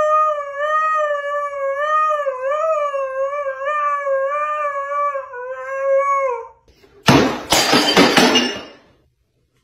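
A husky howls in one long, wavering howl that rises and falls in pitch for about six seconds, then stops. About seven seconds in comes a loud, noisy clatter lasting about two seconds.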